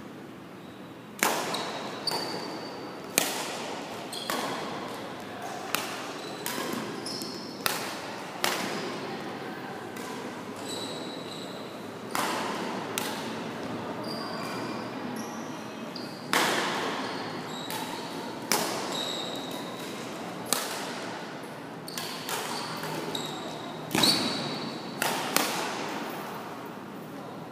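Badminton rackets striking a shuttlecock in singles rallies: sharp cracks about every one to two seconds, with a couple of short pauses, each ringing on in the echo of a large gym. Brief high squeaks of shoes on the court floor come in between.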